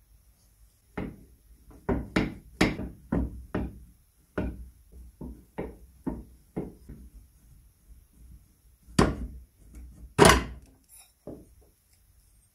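A series of sharp knocks and clunks on cast iron, roughly two a second, as a steel tool works at the roller shaft of an antique cast-iron crepe iron during dismantling. Two louder clunks come near the end.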